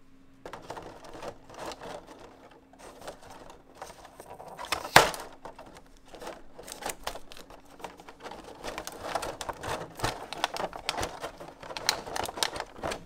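Packaging being handled as a small drone is worked out of its box: scattered clicks and rustles, a sharper knock about five seconds in, and denser clicking and rustling in the last few seconds.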